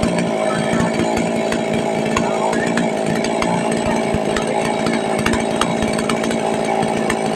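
STIHL two-stroke chainsaw engine running steadily at an even pitch and loudness.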